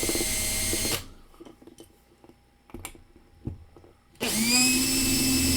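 Hand drill with a self-centering Vix bit drilling out a rivet post of a diecast Hot Wheels car. It runs until about a second in. After a few small clicks it spins up again with a rising whine and runs steadily near the end.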